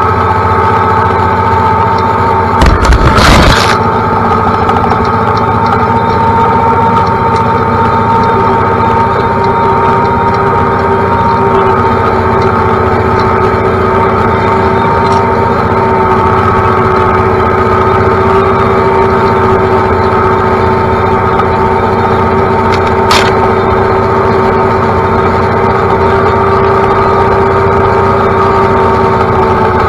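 John Deere utility tractor's diesel engine running steadily at working revs, heard from the operator's seat. About three seconds in comes a brief loud brushing burst as overhanging branches scrape past the cab.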